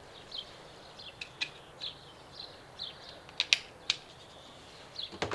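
Quiet handling sounds: a few sharp clicks as a brass-tipped quick-connect adapter is handled and fitted against a plastic pressure washer body, the loudest a little after halfway. Faint short high chirps are scattered in the background.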